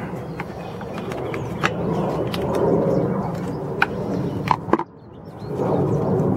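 Scattered light clicks and knocks of hand tools working on a small two-stroke chainsaw engine, over a steady low background rumble. The sound drops away abruptly for about half a second near the end.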